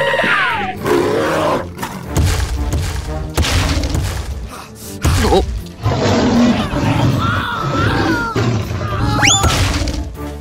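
Background music with added sound effects: several crashing impacts over a low rumble, and a fast rising whistle near the end.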